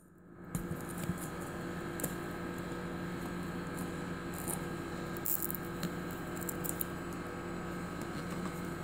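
Faint clicks and rustles of plastic breathing-circuit tubing as the inspiratory and expiratory limbs of a bubble CPAP are plugged into the test elbow, over a steady hum of running equipment, heard muffled through a phone set down on a surface.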